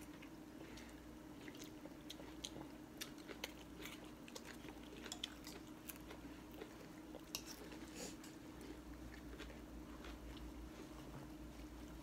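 Quiet eating at a table: chewing on pho noodles, with scattered light clicks of spoons and chopsticks against ceramic bowls.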